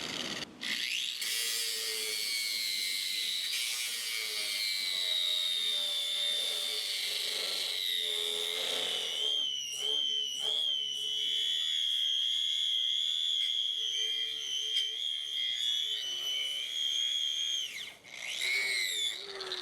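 Metabo 9,000 RPM angle grinder with a 36-grit BHA aluminum oxide fiber disc grinding down a steel weld: a steady, high motor whine under load. Near the end it winds down briefly, then spins back up.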